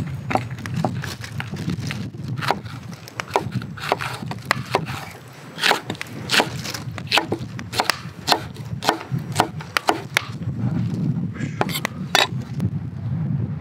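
Kitchen knife slicing green peppers into thin strips on a wooden cutting board: a string of uneven knocks as the blade hits the board, about one or two a second.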